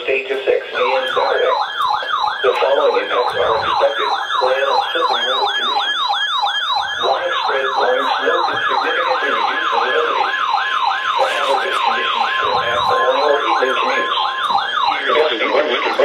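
NOAA weather radio receivers sounding their alert sirens for a Winter Storm Warning: a rapid warbling siren, about three to four sweeps a second, over faint broadcast voice. Partway through, a steady high tone, the weather radio warning alarm tone, joins and holds for several seconds before stopping.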